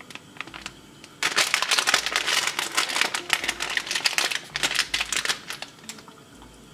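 Chocolate drink powder pouch from a military ration being torn open by hand: packaging crinkling and tearing that starts about a second in, goes on for about four seconds, then thins to a few last crinkles.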